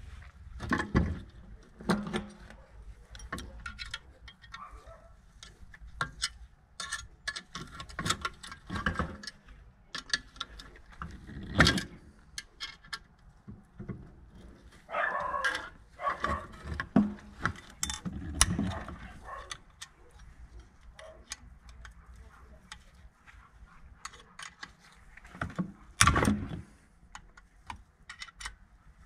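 Metal hand tools and engine parts clinking and knocking irregularly during the strip-down of a motorcycle engine, with a brief metallic ringing about halfway through.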